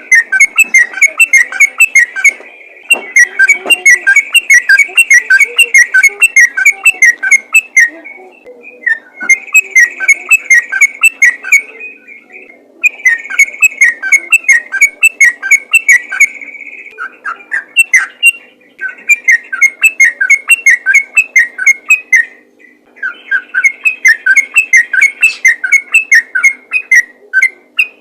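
Sooty-headed bulbul singing a fast run of loud whistled notes, about four or five a second, in phrases of a few seconds with short breaks between them.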